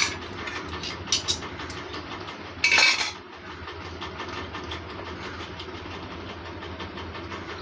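Electric fan running with a steady hum and a faint rhythmic clicking, the noise loud enough that the fan is switched off soon after. A short, loud scraping rub sounds about three seconds in.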